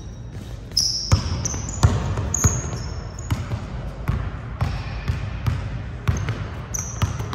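A basketball being dribbled, bouncing about once every three-quarters of a second from about a second in, with short high sneaker squeaks among the bounces.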